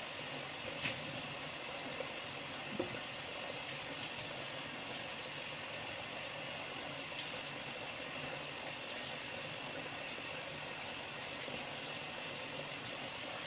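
Steady rush of tap water pouring into a plastic basin, with a couple of faint clicks in the first few seconds.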